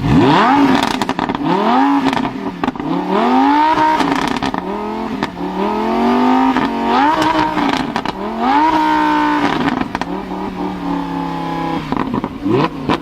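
Lamborghini Huracán LP610-4's V10 engine revved hard about half a dozen times, each rev rising sharply in pitch and falling back, with crackles as the revs drop, and a steadier spell between blips near the end.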